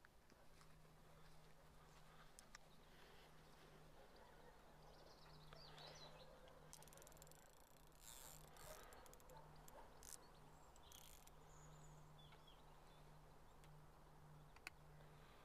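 Near silence: faint outdoor ambience with a low steady hum, a few faint high chirps and scattered small clicks.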